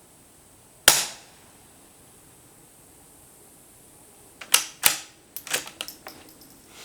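A suppressed Ruger Precision Rimfire .22 fires one sharp shot about a second in. A few seconds later comes a quick run of metallic clicks as the bolt is worked to chamber the next round.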